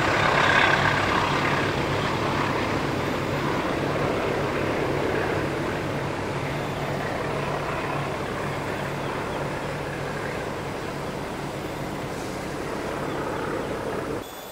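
Diesel-hauled Indonesian passenger train running away along the track, its low engine drone and rumble of wheels on rail fading steadily as it recedes.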